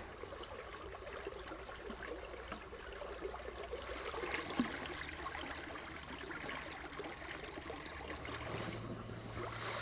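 Shallow, fast-flowing stream water running steadily over its bed.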